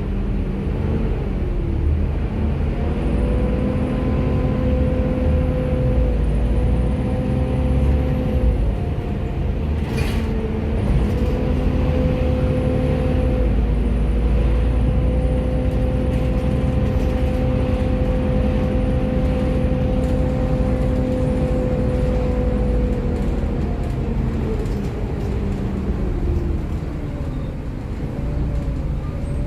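Volvo B7TL double-decker bus under way, its diesel engine and drivetrain giving a steady rumble with a whine that rises as it picks up speed, breaks off briefly with a single click about a third of the way in, holds steady, and dies away near the end as the bus slows.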